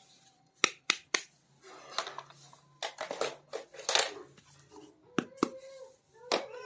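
Small plastic toy pieces being handled up close: a series of sharp clicks and taps with short rustling scrapes between them.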